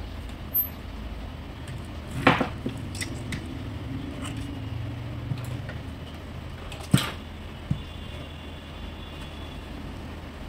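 Steady low background hum broken by a few sharp clicks and knocks, the loudest about two seconds in and another about seven seconds in, with a faint low rumble between them.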